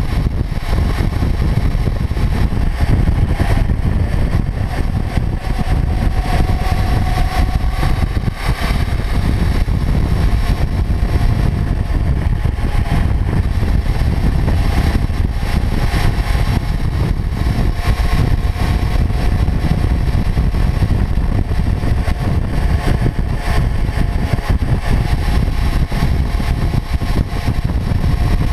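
Kawasaki Ninja 400's parallel-twin engine droning at a steady cruise, mostly buried under heavy wind rumble on the microphone and tyre noise from the road.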